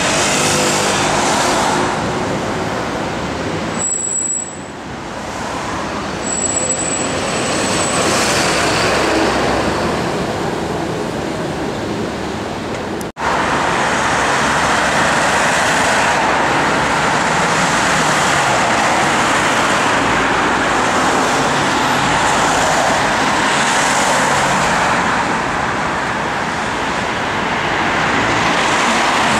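City road traffic noise, a steady wash of passing vehicles. Two brief high squeals come a few seconds in, and the sound cuts out for an instant about thirteen seconds in.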